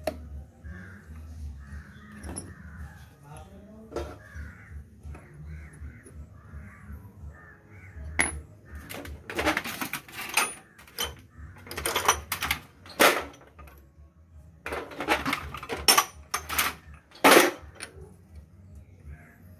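Crows cawing: faint calls at first, then a run of loud, harsh caws in clusters through the second half.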